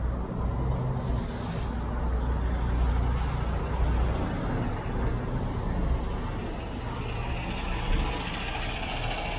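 Diesel truck engines idling, a steady low rumble, with a hiss that grows louder about seven seconds in.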